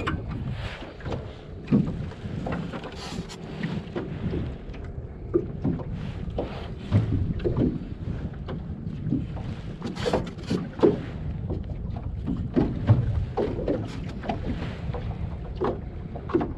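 Wind buffeting the microphone on a small boat, with irregular knocks and clatter throughout.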